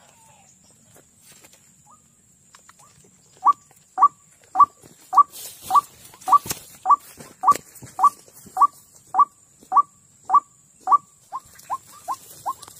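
White-breasted waterhen calling: a long run of short rising notes, about two a second, starting a few seconds in. Near the end the notes come quicker and softer.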